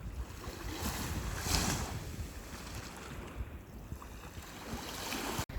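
Wind rumbling on the microphone over sea waves washing on the shore, with a wave's hiss swelling about a second and a half in.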